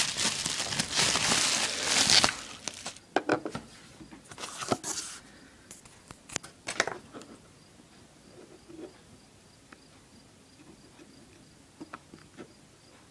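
Bubble wrap crinkling as it is pulled open for about two seconds. This is followed by a few scattered clicks and short scrapes as a coin in a hard plastic capsule is handled and set on a wooden table, then only faint handling ticks.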